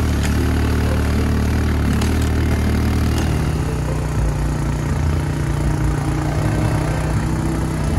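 Engine of a small off-road vehicle running steadily as it drives, with a constant rush of ride noise over it; the engine note changes about three seconds in.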